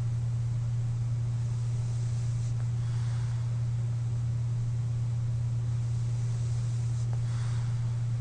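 A sleeper wearing a CPAP mask breathing softly: a faint airy rush of breath about three seconds in and again near the end, over a steady low hum that is the loudest sound.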